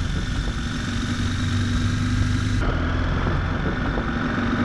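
CFMOTO Ibex 800T's 799 cc parallel-twin engine running steadily while the motorcycle is ridden, with wind and road noise over it. The high hiss drops away abruptly about two and a half seconds in.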